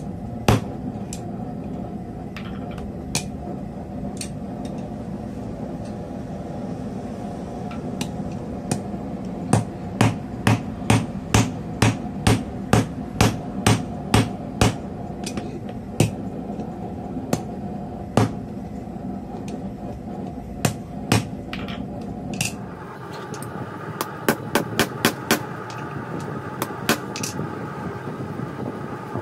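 Hand hammer striking steel on a small stump anvil mounted on a laminated wood block. The strikes come singly at first, then in a quick run of about two a second, then scattered, then in a fast cluster near the end, over a steady background noise. The blows are loud, which the smith blames on the laminated wood base thumping.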